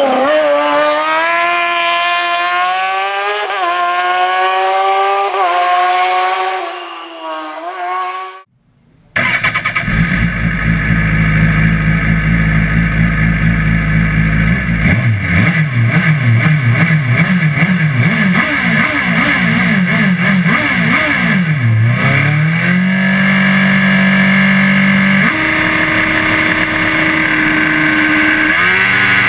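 Hill-climb race prototype engine. It is first heard accelerating hard past from the roadside, its pitch climbing through several quick upshifts. After a sudden cut it is heard from inside the cockpit, running at the start line: a steady idle, then repeated quick throttle blips, then revs held steady and raised a step higher, ready for the launch.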